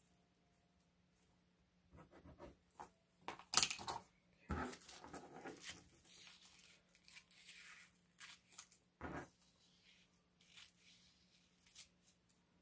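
Scissors cutting tissue-paper sewing pattern: a run of snips with paper crackling and rustling, starting about two seconds in, with a few sharper clicks standing out.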